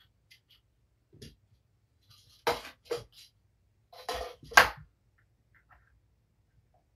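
A kitten scrambling down a carpeted cat tower: a few short scuffs and thumps of paws and claws on sisal and platforms, ending in the loudest thump about four and a half seconds in.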